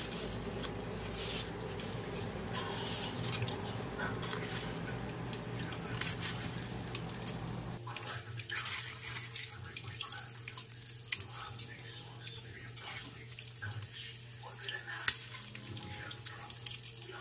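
Gloved fingers pressing and turning a fish fillet in a disposable foil pan of breadcrumbs: scattered small crackles and rustles of crumbs and crinkling foil, over a steady low hum. A low background rumble stops about eight seconds in.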